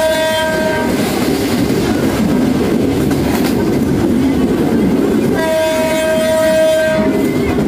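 Train horn sounding two single-note blasts, a short one ending just under a second in and a longer one of about a second and a half starting about five and a half seconds in. Beneath them is the steady rumble and clatter of the train running along the track, heard from aboard.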